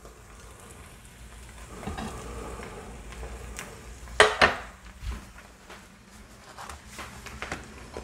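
Egg frying in butter in a small skillet, a faint steady sizzle, with a sharp clatter about four seconds in and a lighter knock a second later.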